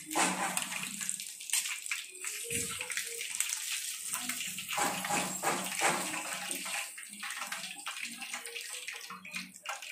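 Hot oil sizzling and crackling around chicken leg pieces deep-frying in a kadai, a steady hiss with many small pops.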